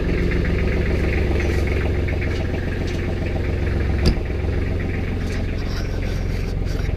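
2004 Kubota L3430 tractor's diesel engine idling steadily as it warms up after a cold morning start. A single sharp knock comes about four seconds in.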